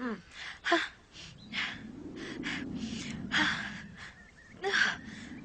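A woman's run of short, breathy gasps, several falling in pitch: the catching breaths that build up to a sneeze. A low rumble sits under them in the middle.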